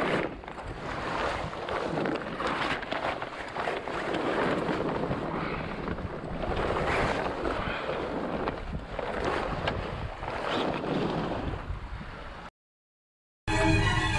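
Water rushing along a sailboat's hull as it moves through the sea, swelling and easing every second or two, with wind buffeting the microphone. It cuts off suddenly near the end, and after a brief silence music begins.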